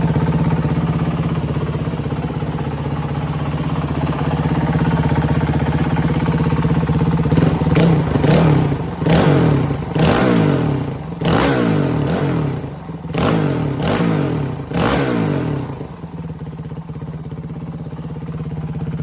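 Honda CRF450RL's 450 cc single-cylinder four-stroke engine idling steadily, then revved in a series of quick throttle blips, each one rising and dropping back, before settling to idle again near the end.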